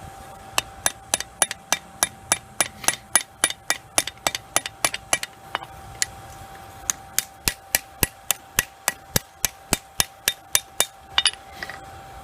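Small hand hammer forging a railroad spike, striking the steel in rapid, even blows about three a second, in two runs with a short pause around the middle. A faint steady tone runs underneath.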